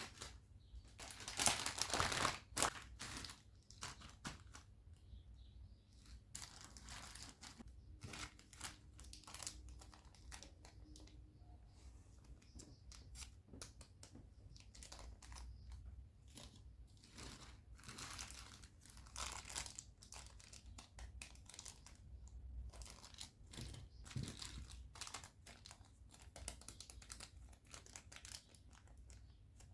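Packing materials being handled by hand, crinkling and rustling in many short bursts, loudest about one to three seconds in.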